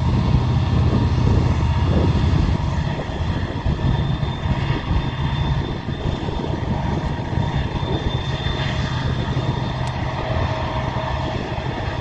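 Norfolk Southern diesel freight locomotives running past, their engines' low drone strongest in the first few seconds. The drone gives way to the steady rumble of the freight cars rolling by.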